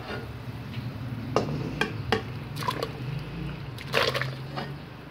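Sliced boiled pork belly sliding off a plate into a stainless steel pot of broth: soft wet splashes and plops, with several sharp clinks against the pot.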